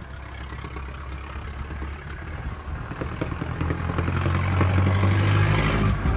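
Brass-era car engine running with a low, rapid clattering beat, growing steadily louder and loudest near the end.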